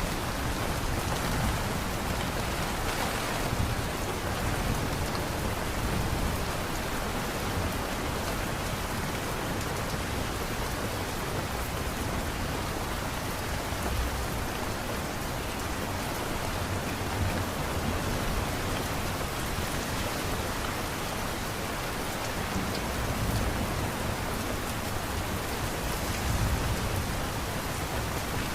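Steady rain falling on surfaces, an even hiss of drops with light low rumbles swelling now and then.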